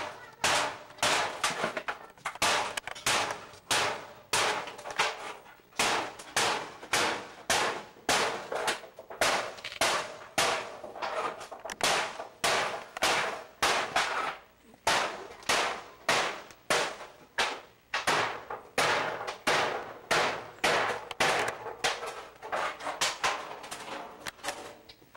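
Metal being struck over and over at an even pace, about two strikes a second, each clang ringing briefly.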